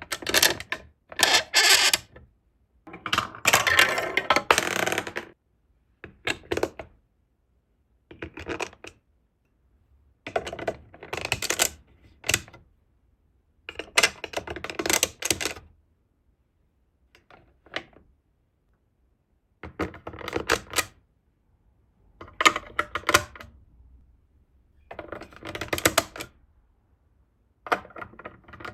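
Glass marbles clattering and rolling through plastic building-block marble-run track, in about a dozen short bursts of rapid clicks and rattles with dead silence between them; the longest rattle comes about three to five seconds in.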